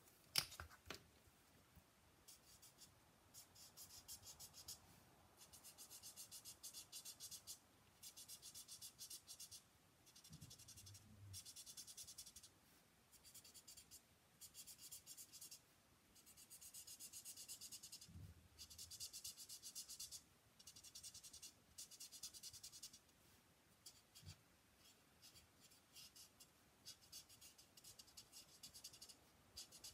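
Faint scratching of a Stampin' Blends alcohol marker tip rubbed quickly back and forth on cardstock, in runs of a second or two with short pauses between.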